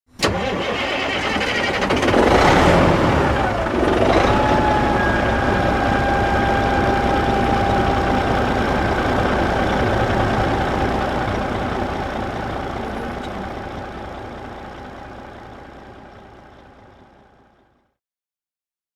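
Diesel engine running, swelling louder for a couple of seconds about two seconds in, then settling into a steady run with a thin whine over it. The sound fades out gradually over the last several seconds to silence.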